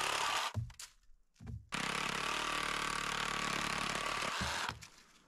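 Reciprocating saw (Sawzall) cutting through a tree branch. One run stops about half a second in, there are two brief blips, and then a steady run of about three seconds stops shortly before the end.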